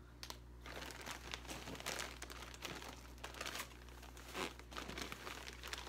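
Plastic bags crinkling and rustling in irregular crackles as hands dig through the plastic liner of a shipping box and handle the fish bags.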